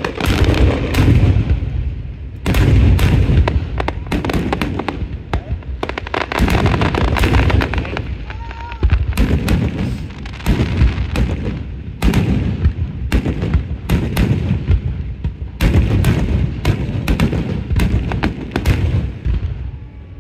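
Aerial firework shells launching and bursting in a dense barrage: many sharp bangs in quick succession, several a second, with deep booms underneath.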